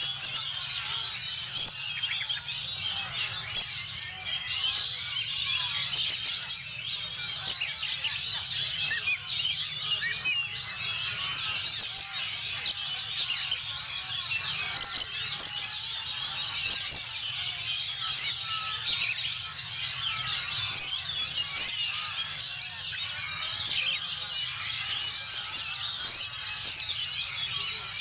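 Dense, unbroken chorus of many caged oriental magpie-robins (kacer) singing at once, a tangle of rapid high whistles and chirps, over a faint low hum.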